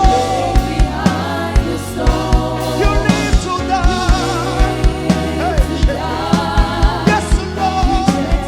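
Live gospel worship music: voices holding long, gliding notes over a band with a steady low beat of about three strokes a second.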